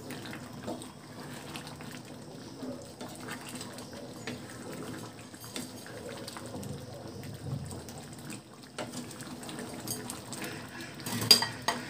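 A wooden spatula stirring a thin, watery curry of bottle gourd and red lentils in a pan, the liquid sloshing, with small scrapes and a sharper knock near the end.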